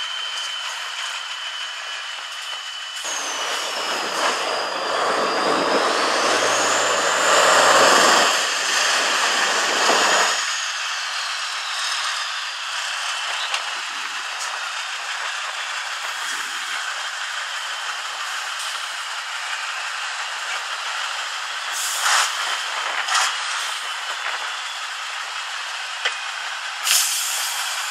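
Tatra 815 6x6 trial truck's diesel engine revving hard under load for several seconds as the truck climbs a steep mud bank, with a high whine rising and falling in pitch. It then runs at lower revs, with a few sharp knocks near the end.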